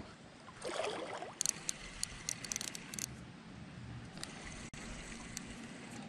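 Creek water running steadily over a shallow riffle, with a scatter of sharp clicks between about one and a half and three seconds in, as a spinning reel is worked against a hooked fish.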